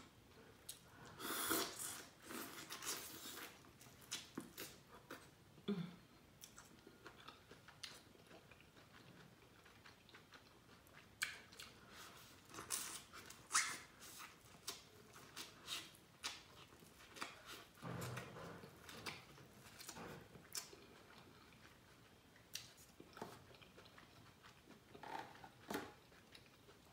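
Close-miked eating sounds: bites, chewing and lip smacks on buttery corn on the cob, coming in irregular clusters of short wet clicks.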